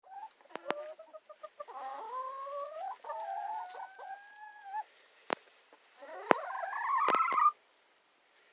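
Hens clucking and calling: a few short clucks, then longer drawn-out calls, and a rising call near the end, with several sharp clicks among them.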